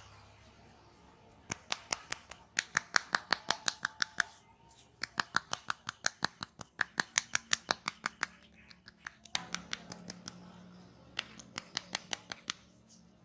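Rapid sharp clicks from a barber's head massage, about six a second, in three runs separated by short pauses.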